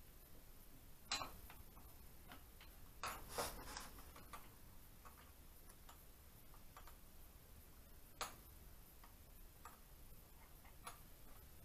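Faint, scattered clicks and taps of metal engine parts being handled, with a few sharper knocks about a second in, around three seconds in, and about eight seconds in.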